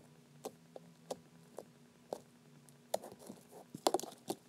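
Fingertips poking and pressing a soft slime, giving small clicky pops about twice a second. Near the end comes a quick run of louder clicks and knocks as a clear container is picked up and handled.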